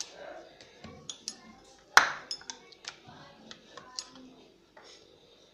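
Wooden rolling pin rolling out dough on a stone rolling board: scattered light clicks and knocks as the pin is rolled and shifted, with one sharp knock about two seconds in.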